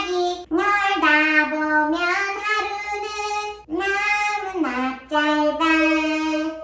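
A woman singing solo in short phrases of held notes that slide up and down between pitches.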